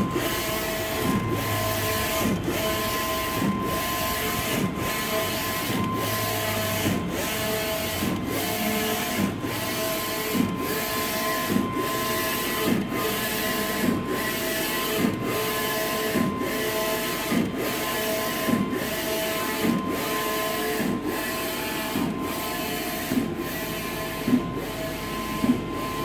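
Large-format inkjet printer with a DX5 print head printing: the head carriage shuttles back and forth about once a second, over a steady motor whine.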